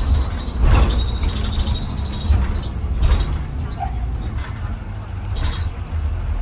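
2020 Blue Bird Vision school bus under way, heard from inside the cabin: a steady low engine and road rumble with several sharp rattles and knocks from the body.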